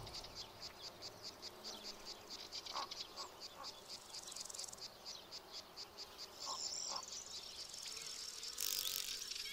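Faint, steady, rhythmic chirping of insects, like crickets, at about three to four chirps a second, with a few faint short calls mixed in.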